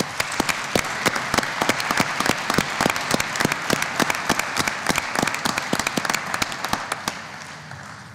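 A large assembly applauding, many people clapping at once, as the vote by acclamation that elects the vice-presidents. The clapping starts at once, holds steady and dies away near the end.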